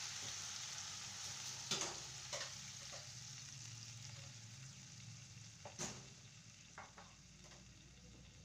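Chicken drumsticks sizzling in a non-stick frying pan, the sizzle dying away as water is added to cover them. A few light knocks sound along the way.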